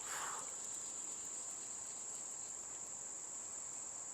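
Insects trilling in one continuous, steady high-pitched drone, with a brief soft rush right at the start.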